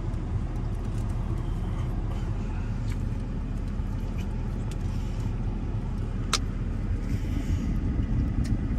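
Steady low engine rumble of a vehicle heard from inside the cab, with faint crackles and one sharp click about six seconds in.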